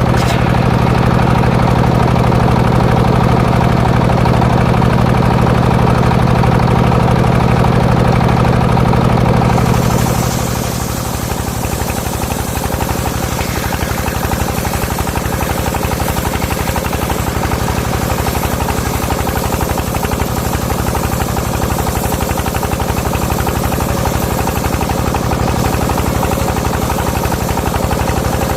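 Engine powering a homemade circular saw rig, running steadily with a regular knocking beat. It runs heavier and louder with a strong low hum for the first ten seconds or so, then eases to a lighter steady run.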